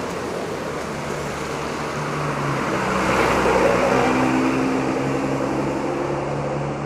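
A bus driving past with its engine running, the sound building to a peak about halfway through and then easing off.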